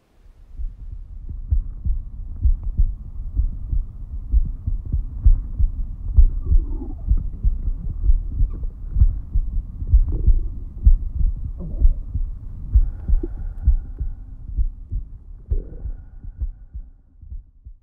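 Low, muffled thumping pulses, roughly two or three a second and a little irregular, with faint higher wavering sounds drifting in and out above them.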